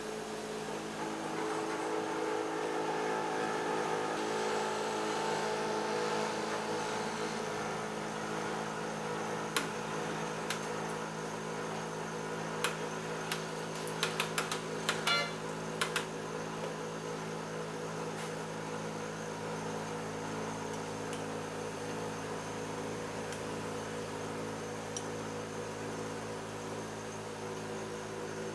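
Steady mechanical hum with several fixed tones, with a scatter of short sharp clicks about halfway through.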